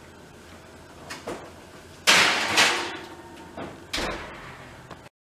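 Kitchen oven door being opened with a clatter about two seconds in, then shut with a thump about four seconds in.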